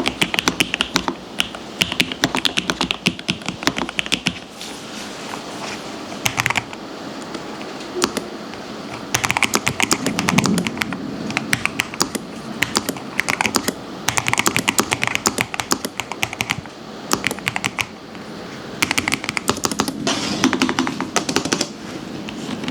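Typing on low-profile mechanical keyboards in bursts of rapid key clicks with short pauses: first a Lofree Flow Lite, with its deeper thocky sound, then, after a pause about five seconds in, a quieter, smoother Lofree Flow 2.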